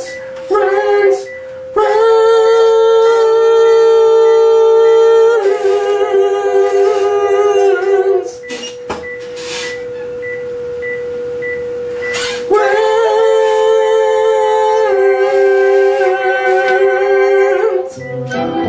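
A man's voice singing long held notes into a microphone, doubled in real time by a computer-generated, pitch-shifted harmony voice from a harmonizer program. The two voices hold each note for a few seconds and step to new pitches together, thinning to a single steady tone for a few seconds in the middle.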